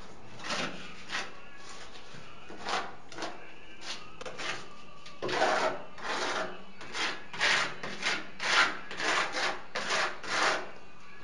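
A small trowel scraping wet mortar onto a rendered wall in repeated strokes. The strokes are sparse at first, then louder and quicker, about two a second, from about halfway through.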